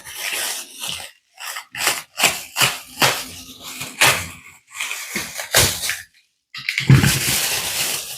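Irregular scraping, rustling and knocks of packaging being handled as a boxed RC excavator is unpacked.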